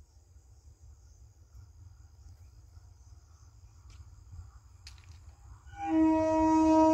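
Electric multiple unit (EMU) train's horn sounding one long, steady blast that begins near the end, after several seconds of faint background hum.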